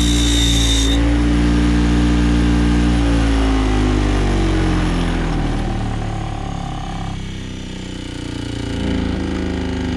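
Bench grinder running, with the high grinding hiss of a lamp-socket cap pressed into the wheel for about the first second. After that the motor's hum carries on alone, then drops in pitch and level over several seconds as the wheel winds down.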